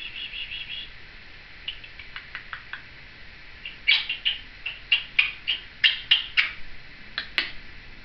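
Timneh African grey parrot making short, sharp chirps and clicks. It opens with a quick run of about five notes and then a few soft clicks. From about four seconds in comes a louder series of sharp chirps, about three a second, ending with a crisp click.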